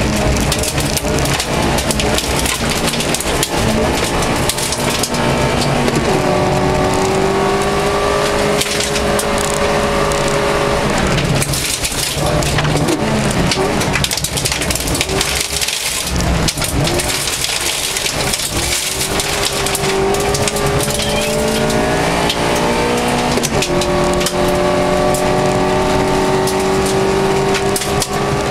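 Toyota Corolla FX-GT's twin-cam four-cylinder engine heard from inside the car, revving hard and changing up through the gears on a gravel climb. The revs climb and drop back with each gear change, dipping and wandering about halfway through, then climbing again near the end. A steady hiss and rattle of gravel under the tyres and against the underbody runs beneath it.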